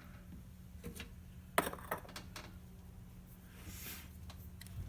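A few light metallic clicks and taps, the strongest about a third of the way in, from small wire J-clips and pliers being handled, over a steady low hum.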